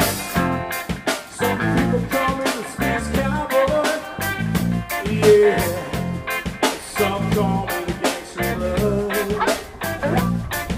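Band playing an instrumental passage of a mid-tempo blues-rock song: electric guitar and bass over a drum kit keeping a steady beat.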